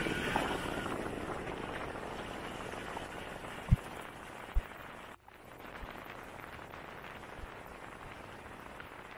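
Steady rushing wind and tyre noise from a vehicle driving along a rough dirt track, with two dull thumps from bumps midway. After a short break about five seconds in, the noise is quieter, as heard inside the cabin.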